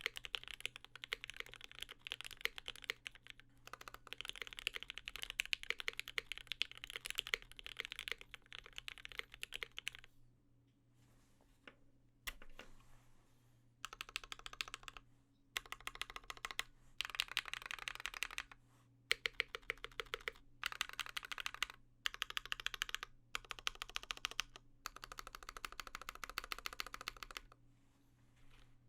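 Velvet Pro custom mechanical keyboard with lubed Gateron Mink linear switches on an aluminium plate and GMK keycaps, typed on in fast continuous runs of keystrokes. Typing stops for a few seconds about ten seconds in, with one lone keystroke in the pause, then resumes in bursts separated by short breaks.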